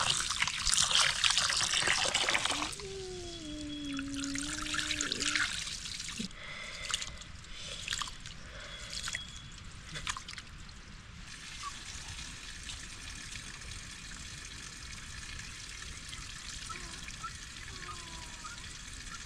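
Running water for about the first three seconds, then a few light knocks and a faint steady hiss.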